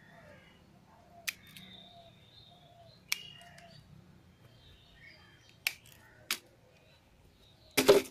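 Long-bladed hand shears snipping branches off a fig bonsai: four sharp snips spread a second or two apart. A louder, brief noise comes near the end.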